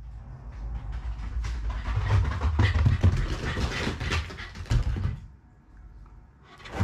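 Black Shiba Inu dashing around a tatami room, a fast patter of thudding, scrabbling paws on the mats and rug, with the dog's own noises among them. The running stops about five seconds in and it goes quieter.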